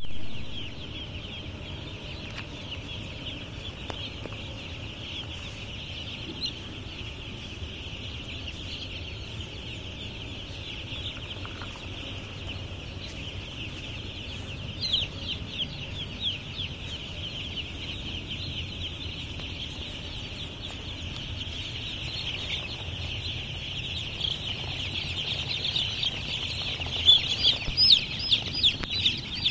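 A flock of young domestic chicks peeping together in a dense, steady chorus of short, high peeps. It grows louder near the end, with single peeps standing out close by.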